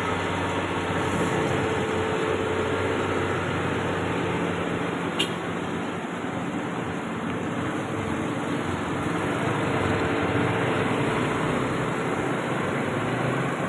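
Heavy-machinery engine running steadily, with one short sharp click about five seconds in.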